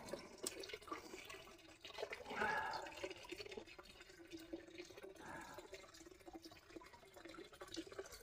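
Faint clicks and rustling as bundled insulated wires are handled and pushed into the hole of a plastic junction box, over a faint steady low hum.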